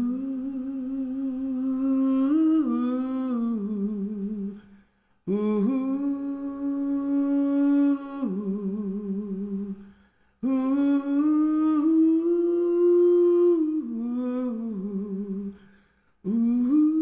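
A solo voice humming a slow, wordless melody in long held notes with vibrato. The phrases last four to five seconds each, with a short breath between them.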